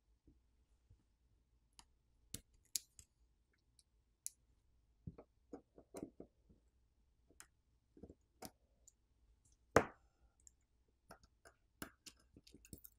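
Scattered, irregular faint clicks and taps of a metal pry tool and fingertips against a smartphone's opened internals, as the charging-port subboard is pried loose. The loudest click comes about ten seconds in.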